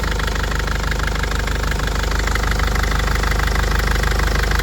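Mercedes Vito van engine idling steadily with an even, rapid pulse, running sweetly.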